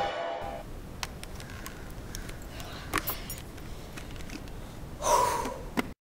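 Scary background music trails off at the start. Then it is quiet, with a few faint clicks, and about five seconds in a boy gives a short gasp. The sound cuts off abruptly near the end.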